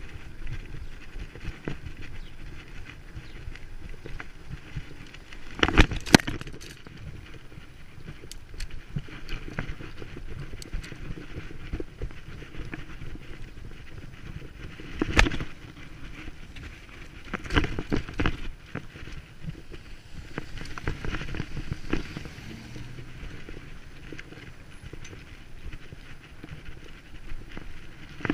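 Bicycle ridden over rough ground: a steady rattle and tyre noise, broken by a few sharp knocks, the loudest about six seconds in and about fifteen seconds in, with a cluster of them a little later.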